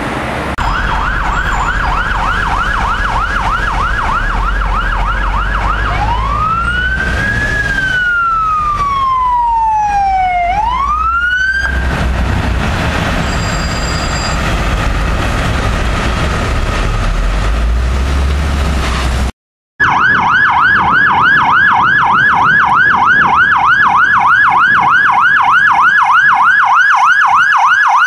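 Polish police car electronic sirens: a fast yelp cycling several times a second, which changes about six seconds in to a slow wail that rises, falls and rises again, with another siren's quick chirps over it. After a few seconds with only a low vehicle rumble and an abrupt cut, the fast yelp sounds again loudly to the end.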